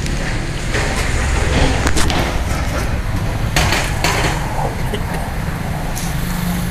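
Busy street ambience: a steady low rumble of traffic with a few scattered clicks and clatters, including a short louder rush about halfway through.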